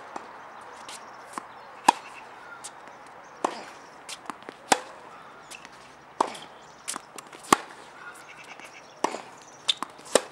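Tennis rally on a hard court: a string of sharp pops as the ball comes off the rackets and bounces on the court, at uneven spacing, the loudest about two, five and seven and a half seconds in.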